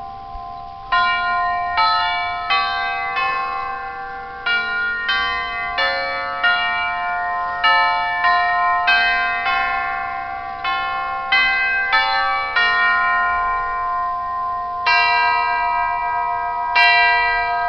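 Tubular-chime clock with a German movement, its hammers striking the metal chime tubes one after another in a melody, about two notes a second, each ringing on under the next. Near the end the strikes come further apart.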